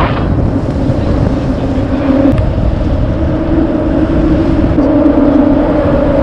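A motor vehicle running: a steady low rumble with a motor whine that rises slightly in pitch about three seconds in.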